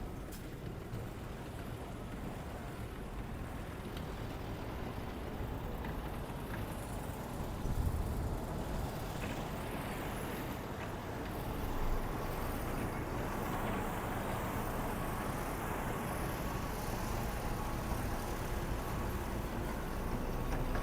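Steady motor-vehicle engine and traffic noise, with a low rumble, swelling briefly about eight and twelve seconds in.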